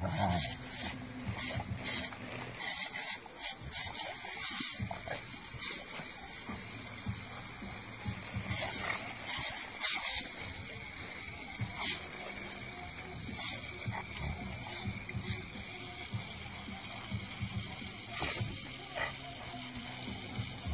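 Garden sprinkler jet hissing steadily while a Rottweiler bites and snaps at the stream, with many irregular clicks and splashes, busiest in the first half.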